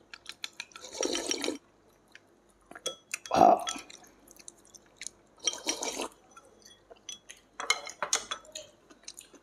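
Chicken rice porridge being eaten from a bowl with chopsticks: about four short, wet slurps, the loudest a little after three seconds in, with small clicks of chopsticks on the bowl and mouth sounds between them.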